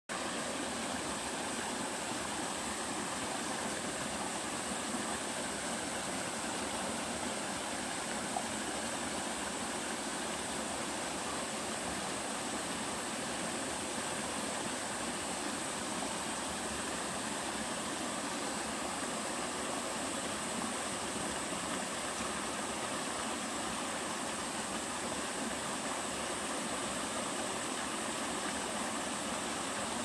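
A small waterfall in a mountain stream, pouring over rock ledges into a pool: a steady, unbroken rush of water.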